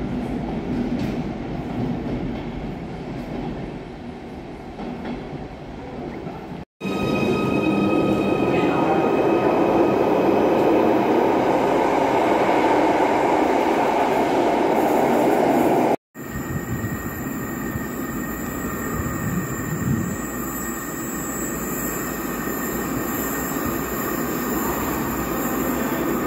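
Trains in an underground station, in three stretches. First, the Network Rail railhead treatment train approaches through the tunnel with a steady rumble. Then a louder Merseyrail Class 777 electric train pulls into the platform with a high, steady whine over its rumble, followed by a quieter, steady echoing rumble of a more distant train in the tunnels.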